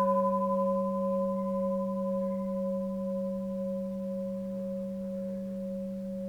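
Bronze Japanese Buddhist temple bell, dated 1846, ringing on after a strike just before: a low steady hum with several higher overtones that fade slowly, the tone wavering gently as it decays.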